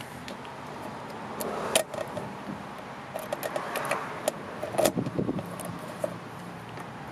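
Keys jingling and the metal lock of a 1994 Subaru Sambar truck's fuel filler door clicking as a key is pushed in and turned. There is one sharp click just under two seconds in, then a run of small clicks and jingles.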